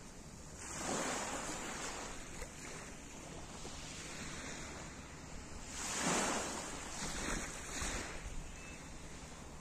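Small waves washing up onto a pebble beach, swelling and falling back in several washes, the loudest about six seconds in, over a steady low rumble of wind on the microphone.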